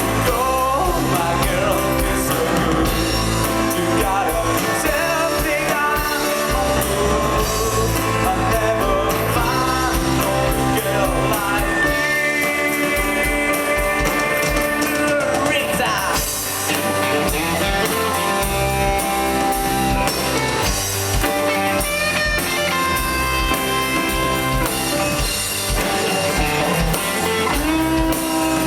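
Rock band music with electric guitar, a drum kit and a singing voice, with a steady beat and gliding, bent guitar or vocal notes.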